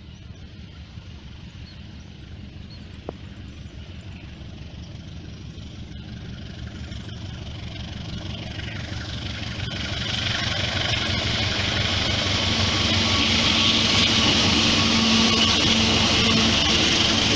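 Indonesian CC 201 diesel-electric locomotive (a GE U18C) approaching with a train: its engine drone grows steadily louder, and a rushing of wheels on rails builds from about halfway in.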